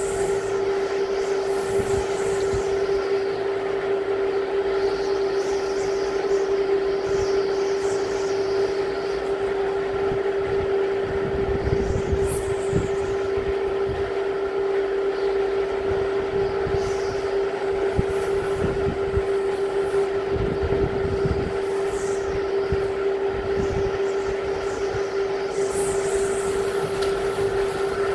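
Typhoon wind gusting in irregular rushes, with low rumbling buffets on the microphone around the middle and past two thirds through, over a steady unchanging tone.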